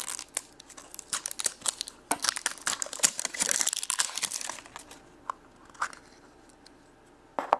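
Plastic wrapper of a FASHEMS blind-bag toy crinkling and tearing as it is opened by hand. The crackling is dense for about five seconds, then thins to a few scattered clicks.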